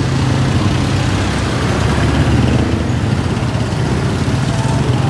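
Small motorcycle engine of a motorcycle-and-sidecar tricycle running steadily close by, a low, even hum.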